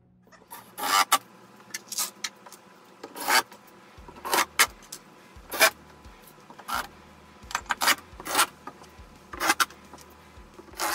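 Irregular knocks, scrapes and metallic jingling of hand tools and screws being handled on a plywood cabinet top, about ten sharp sounds.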